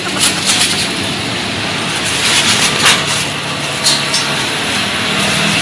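Street traffic noise: motor scooters running and passing, a steady wash of sound with a few short sharp clicks and a low engine hum that comes in about halfway through.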